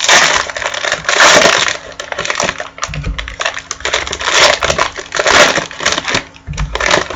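Trading-card pack wrappers crinkling and tearing as packs are ripped open by hand, in several loud crackly bouts.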